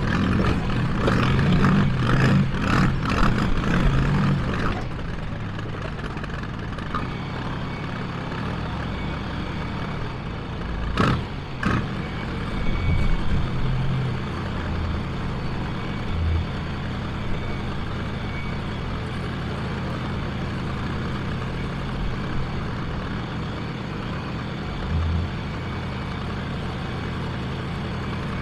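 John Deere 310A backhoe's diesel engine running, revving up and down harder for the first few seconds, then settling to a steady run, with a sharp knock about eleven seconds in.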